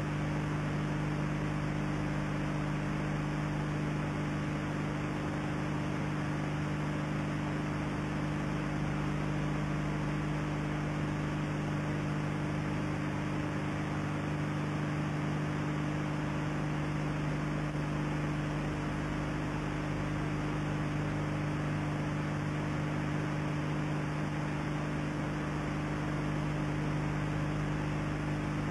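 Steady electrical mains hum with constant hiss, the background noise of an old videotape recording; it does not change at all.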